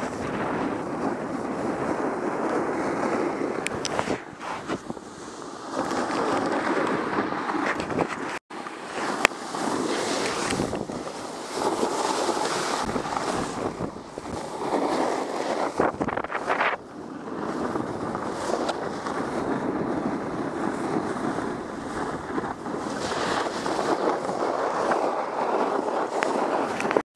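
Wind rushing over the microphone during a fast ski descent, mixed with skis scraping and hissing over packed snow; the noise swells and dips with the turns and drops out for a moment about eight and a half seconds in.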